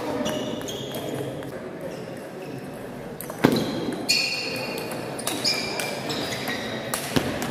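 Table tennis rally: the ball clicking off the bats and bouncing on the table, a string of sharp knocks with short ringing pings, the loudest about halfway through and coming quicker after it.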